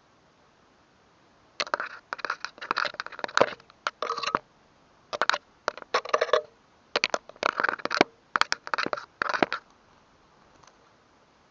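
Irregular bursts of crackling, crunching rustle, in clusters of quick strokes with short pauses, stopping about two seconds before the end.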